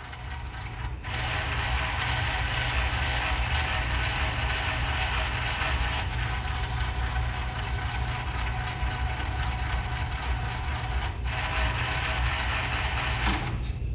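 Marantz DV4200 DVD player's disc-loading motor and gears running steadily, starting about a second in and stopping abruptly near the end, while the tray stays put. The owner suspects a faulty locking gear that fails to stop the mechanism.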